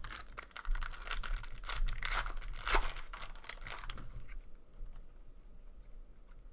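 Foil trading-card pack being torn open and its wrapper crinkling. The rustling is busiest for the first four seconds, then fades to faint handling clicks.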